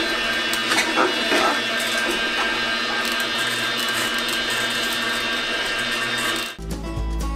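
Kuvings commercial masticating slow juicer running steadily, its motor making a whine of several fixed tones, with scattered crackles of produce being crushed in the first couple of seconds. About six and a half seconds in it cuts off abruptly and music begins.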